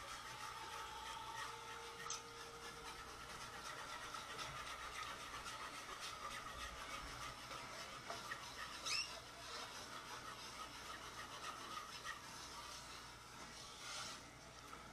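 Wire whisk stirring and scraping through thin chili gravy in a metal pot as beef stock is whisked into a flour-and-oil roux: a faint steady rubbing, with a brief louder knock about nine seconds in.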